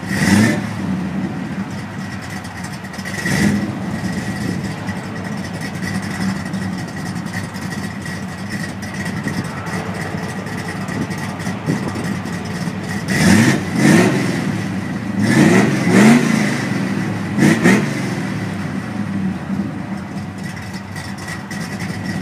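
Car engine idling steadily, blipped up once at the start and again about three seconds in. Later it is revved five times in quick succession, each rev rising and dropping back, before it settles to idle again.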